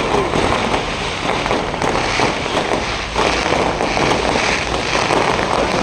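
Fireworks display: many bangs and crackles going off in quick succession over a steady wash of outdoor crowd noise.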